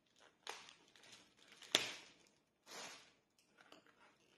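Rustling and crinkling of protective wrapping being cut and pulled off a new handbag's handles, in short separate bursts, with one sharp click a little under two seconds in.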